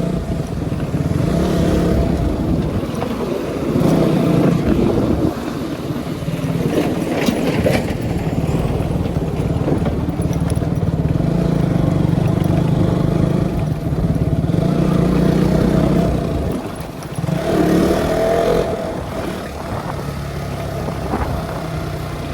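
KTM Duke motorcycle engine running under way at a steady pace, easing off briefly about three-quarters of the way through and then revving back up.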